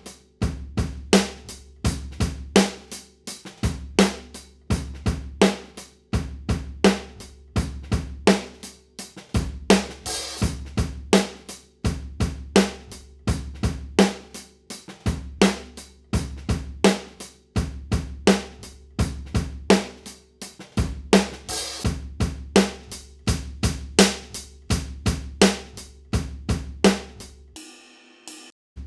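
Drum kit heard through overhead microphones, playing a steady groove of kick, snare and hi-hat, with crash cymbals swelling about ten seconds in and again past twenty seconds. The track stops briefly near the end and starts over. It is being processed with an EQ that cuts low end and boosts the high end.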